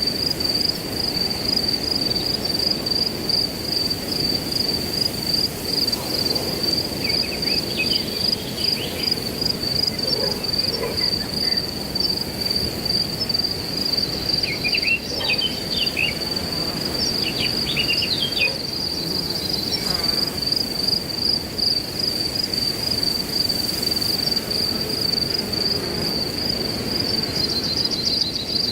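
Crickets chirping in a steady, fast-pulsing high trill over a low rush of wind through grass, with a few short bird chirps in the middle stretch.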